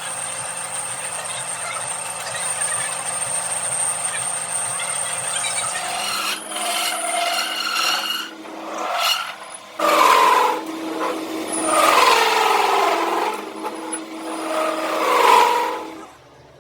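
A small power tool runs steadily, then irregular rasping passes of metalworking, scraping or grinding on metal, start about six seconds in.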